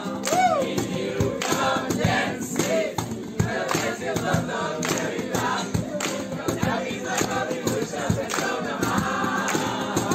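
A group of young people singing together loudly, accompanied by guitar and cajón, with frequent percussive strikes through the song.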